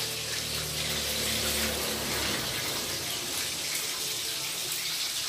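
Food sizzling in hot oil or on a hot grill: a steady, even hiss, with a low hum under it that stops about two seconds in.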